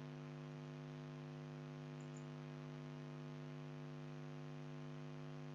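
Faint steady electrical mains hum from the recording chain, a low buzz made of several steady tones over a light hiss.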